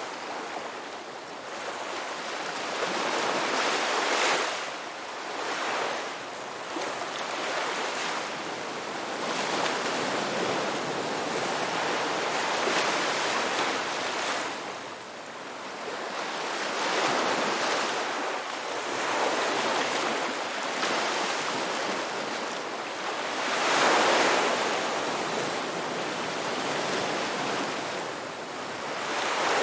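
Ocean waves breaking and washing on the shore, a continuous surf rush that swells with each wave, about every few seconds, the loudest about four, seventeen and twenty-four seconds in.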